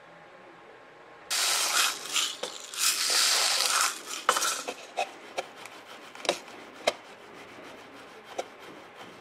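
Lead shot poured from a can into a plastic soda-bottle funnel on top of a pipe. It starts about a second in as a dense rattle of pellets for about three seconds, then turns to scattered clicks as the shot settles and drains down into the pipe.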